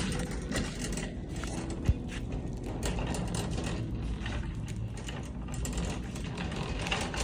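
Road noise inside a moving car: a steady low rumble with irregular clicking and rattling, and one sharp click about two seconds in.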